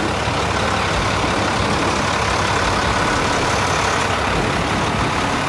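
Truck engine running steadily close by, a loud, even drone with no change in speed.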